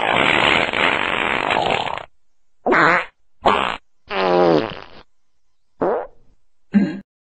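Fart sound effects: a long noisy one lasting about two seconds, then five short ones separated by pauses. The longest of the short ones has a clear pitch that dips and rises.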